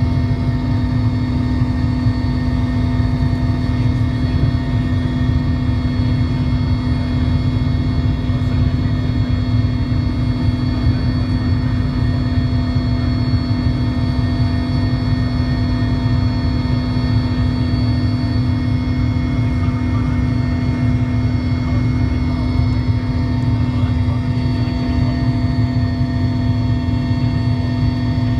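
Mil Mi-17 helicopter in cruising flight, heard from inside the passenger cabin: the twin turboshaft engines, rotor and gearbox make a loud, unchanging drone. It has a deep rumble, a strong steady hum and several thin steady whines above it.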